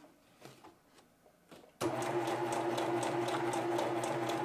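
Necchi C35 Creator household sewing machine sewing a dense decorative zigzag stitch, starting abruptly about two seconds in after a near-quiet pause with a few faint clicks, then running at a steady speed with an even stitch rhythm.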